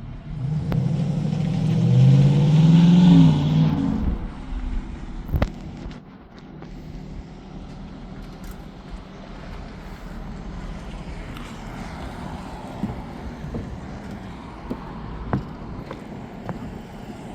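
A car drives past, its engine note climbing and then dropping over about three seconds. Steady outdoor background noise follows, with a couple of faint clicks.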